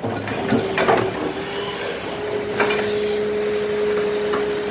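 Excavator running steadily, with a held whine that gains a lower second tone about two and a half seconds in, and a few short knocks in the first three seconds.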